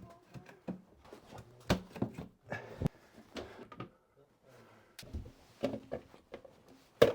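Scattered sharp knocks and clicks of parts being handled and fitted while a PIV ventilation fan is installed, with faint muffled voices between them.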